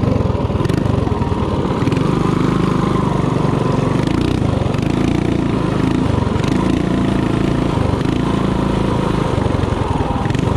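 Mini bike's small single-cylinder four-stroke engine running hard through a lap on a dirt track. Its pitch dips and climbs a few times with the throttle.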